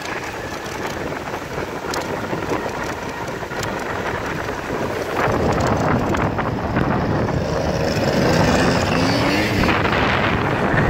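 Moped ride: wind buffeting the microphone over road and motor noise, getting louder about halfway through, where a faint motor drone rises slightly in pitch.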